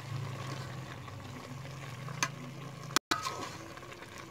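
A metal spoon stirs pieces of pork, kidney and heart cooking in a pot, over a steady sizzle. There is a sharp clink of the spoon about two seconds in and another about three seconds in.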